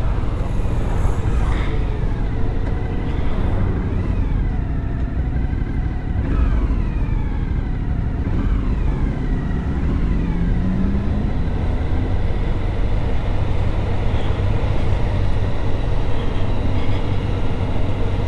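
Motorcycle engine running under a steady rush of wind noise, its pitch falling and rising several times as the bike slows for hairpin bends and pulls away again.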